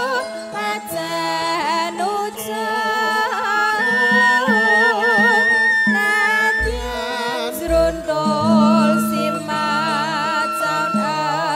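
Javanese gending played by a traditional band, with a female sinden singing a wavering, ornamented melody into a microphone over held instrument tones. A few deep drum strokes sound in the second half.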